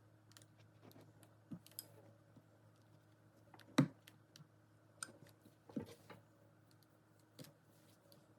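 Scattered light clicks and knocks of an iron and fabric being handled while interfacing is ironed onto fabric, with one louder knock about four seconds in, over a faint steady hum.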